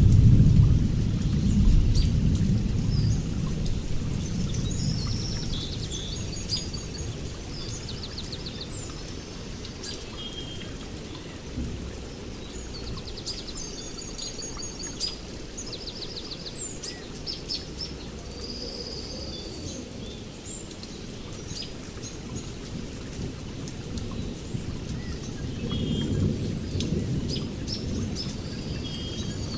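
Birds chirping and trilling over a low rumble of distant thunder. The rumble is loudest at the start, dies down, and swells again near the end.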